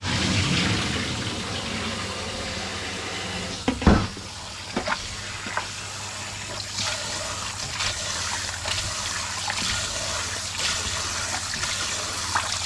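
Kitchen tap running into a stainless steel bowl of small fish as hands swish and rub them under the stream, rinsing off the salt. A sharp knock about four seconds in, with a few lighter clacks after it.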